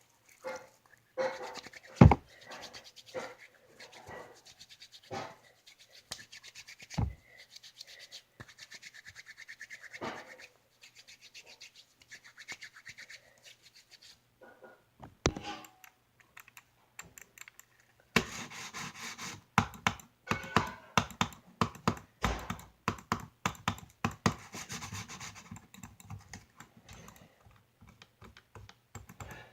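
Scratching and a few sharp knocks, then, a little past halfway, a dense run of quick clicks and taps.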